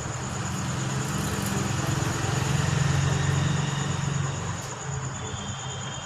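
Engine hum of a passing motor vehicle, swelling to its loudest midway and fading again, over a steady high thin drone; a second high tone joins near the end.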